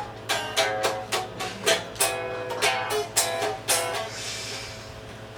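A guitar strummed in a run of quick chords, which stops about four seconds in and is followed by a soft hiss.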